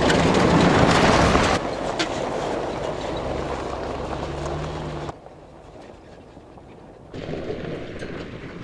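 Full-size SUV driving on a rocky gravel track: engine running and tyres crunching over stones, loudest as it passes close in the first second or so. The sound drops suddenly about five seconds in and comes back up a little near the end.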